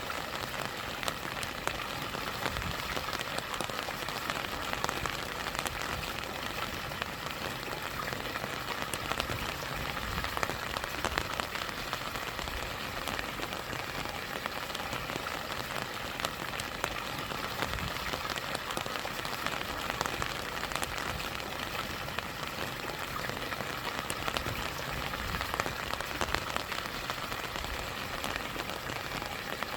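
Steady rain falling, a dense patter of individual drops over the continuous rush of a stream and small waterfall.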